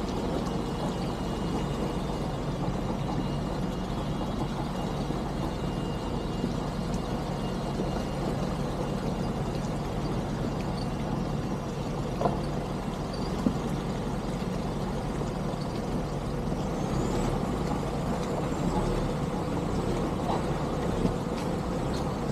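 Steady vehicle engine and road noise while driving, low and even, with a couple of brief knocks about halfway through.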